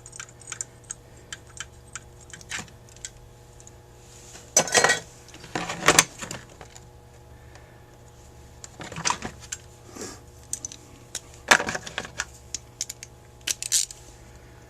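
Small metal carburetor parts and hand tools clicking and clinking against each other and the bench as a Carter AFB four-barrel carburetor is taken apart, with about five louder clanks spread through.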